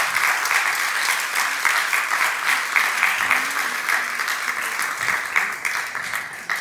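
Audience applauding: many hands clapping together, slowly thinning and getting quieter toward the end.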